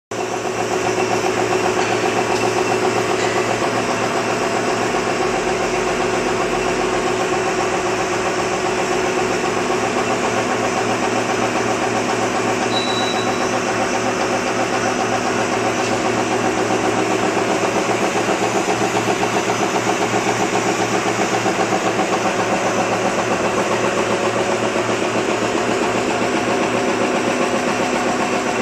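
Automatic napkin tissue folding machine running steadily, a continuous mechanical clatter with a fast, even rhythm.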